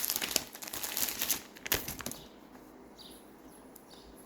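Plastic packaging crinkling and crackling as it is handled for about two seconds, then fading to quiet.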